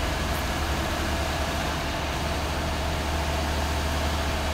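Heavy diesel truck engines of a concrete pump truck and a cement mixer truck running together in a steady low drone.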